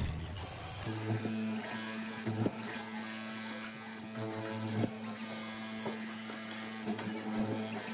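Hollow-chisel mortiser's electric motor running with a steady hum while the chisel is plunged into a pine board, with a few sharp knocks as it cuts.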